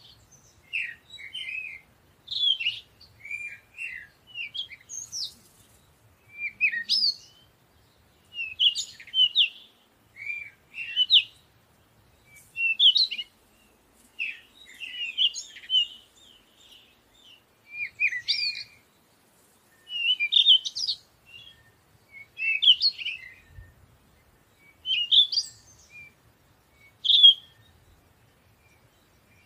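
Small bird singing short, high chirping phrases, one every two seconds or so, with brief pauses between.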